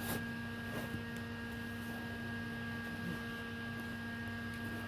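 A steady electrical hum with a few fixed tones over a low background noise, and a single sharp click just after it begins.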